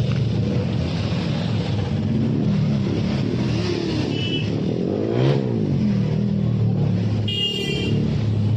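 Several motorcycle engines running together at low speed, their pitch rising and falling with the throttle, with one quick rev about halfway through. A short high beep sounds near the end.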